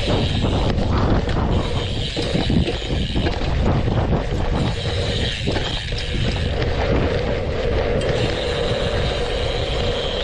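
A 2021 Chase Edge BMX race bike riding a dirt track: a steady rumble of tyres on dirt and rushing wind on a chest-mounted camera.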